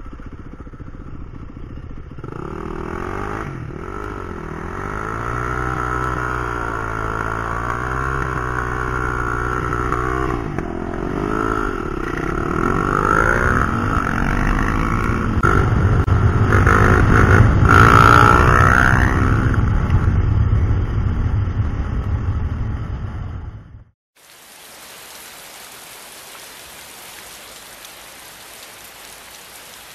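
Yamaha WR450F dirt bike's single-cylinder four-stroke engine running on the road, its revs repeatedly rising and falling as the rider works the throttle. About two-thirds of the way through it cuts off abruptly to a steady hiss.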